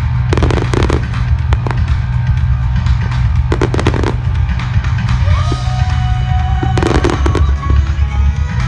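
Fireworks exploding overhead: clusters of sharp bangs and crackles come about a second in, at about four seconds and again near the end. They play over loud music and a steady low rumble.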